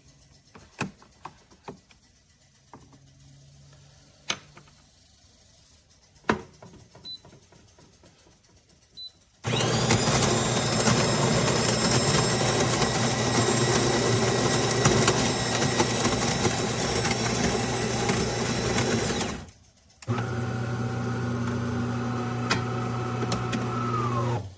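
De'Longhi Magnifica Plus espresso machine running: a few light clicks and taps, then a loud, steady motor noise for about ten seconds. It stops briefly, then a second steady hum runs for about four seconds and winds down at the end.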